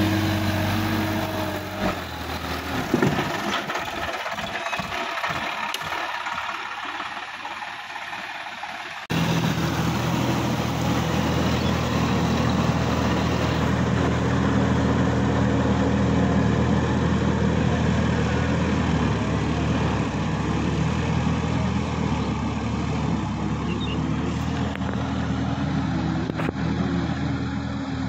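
Tractor diesel engine running steadily under load while it pulls a rotary tiller through a flooded paddy field. Before a hard cut about nine seconds in, the engine is fainter, with irregular knocks.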